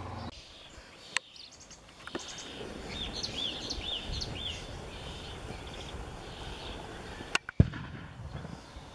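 Small birds chirping, a run of short repeated sliding calls, over steady outdoor background noise. A sharp click comes about a second in, and a sharp click and a louder knock come close together near the end.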